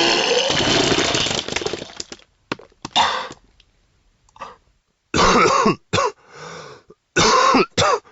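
A person coughing and retching in loud bursts: a long harsh one at the start that trails off over about two seconds, then several shorter ones near the end.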